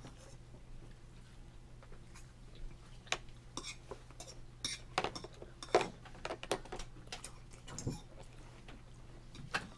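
Light clicks and knocks of tableware on a plastic high-chair tray as a toddler handles a divided plate and picks at food, a handful of them bunched between about three and seven seconds in, over a steady low hum.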